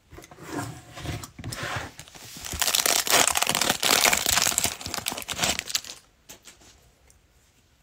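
Foil trading-card booster pack being torn open and crinkled by hand. The crinkling is loudest for about three seconds in the middle.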